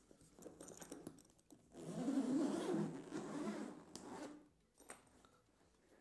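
The zipper of a suede soft rifle case being pulled open. Light handling rattles come first, then one long zip of about three seconds, then a small click about five seconds in.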